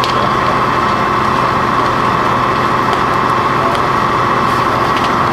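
Fire engine idling steadily, with faint crackling of the burning mobile home.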